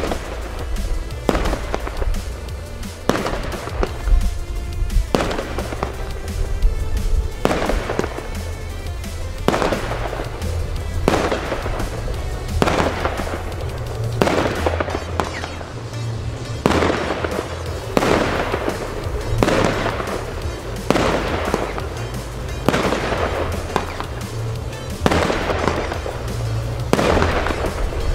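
Nico "Bling Bling" firework compound firing shot after shot, each a sharp bang with a fading crackling tail, about one every second and a half.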